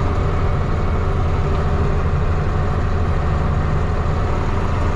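Tractor engine running with a steady low drone.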